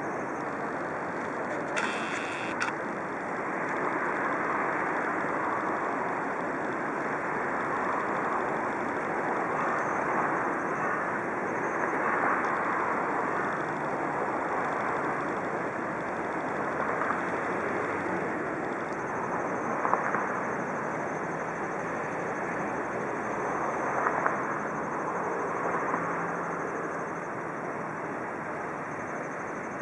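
Steady distant engine noise from the river and its banks, an even rumbling hiss, with a few short clicks scattered through it.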